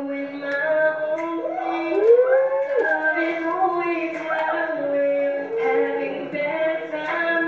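A solo voice singing a live stage performance, heard through a TV's speakers, with long held notes and sliding, curving pitch.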